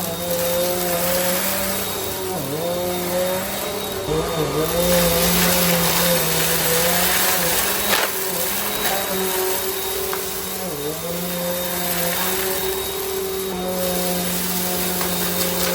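Bissell CleanView compact vacuum cleaner running with a steady motor hum and airflow rush. Its pitch dips briefly three times, and a sharp click comes about halfway through.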